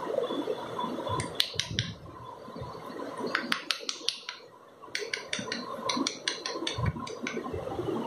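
Sharp clicks and light taps from a parakeet cage, coming in three quick runs: about a second in, around three and a half seconds, and again from about five to seven seconds in.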